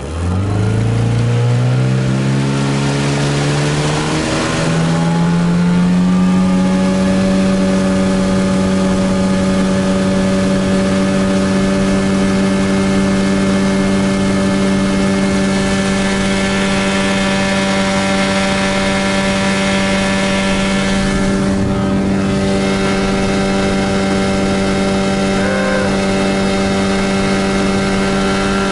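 Gladiator 9.8 hp outboard motor on a small inflatable boat accelerating, its pitch rising over the first five or six seconds, then running steadily at high speed with the boat up on the plane.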